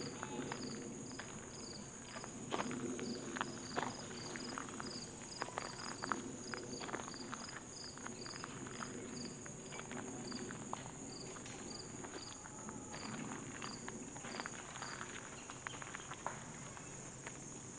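Footsteps crunching on a gravel trail at an uneven walking pace. Behind them, insects keep up a steady high drone, with a regular chirping of a few chirps a second.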